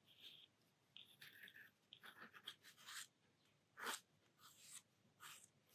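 Faint scratching of a Speedball metal dip-pen nib on paper, a string of short, irregular strokes, the loudest just before four seconds in.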